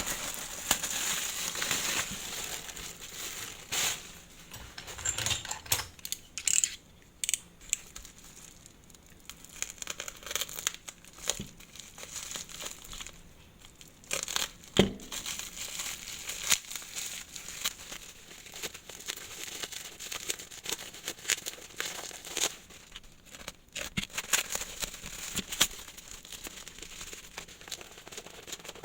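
A mailed parcel being unwrapped by hand: plastic packaging crinkling and tearing in irregular bursts, with scattered small clicks and one louder knock about halfway through.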